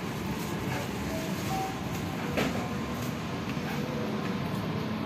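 Steady background noise of a busy shop floor, with one sharp tap about halfway through.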